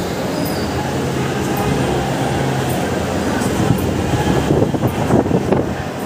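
Large evaporative air cooler's fan running: a steady rush of air over a low motor hum, with louder, uneven gusts on the microphone about four and a half seconds in.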